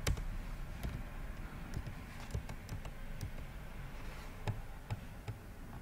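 Computer keyboard keys clicking now and then, a dozen or so scattered keystrokes at an uneven pace, the first one near the start the loudest.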